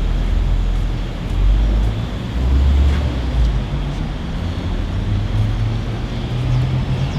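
Steady ambient noise inside a small hair salon: a continuous low rumble and hum that drift slightly in pitch, with a few faint ticks.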